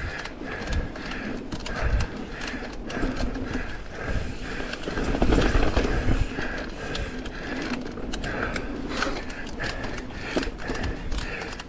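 Mountain bike's rear freehub buzzing with a fast ratchet as the rider coasts down a dirt singletrack, mixed with short rattles and knocks from the chain and the bike over the rough trail, and a low wind rumble on the microphone.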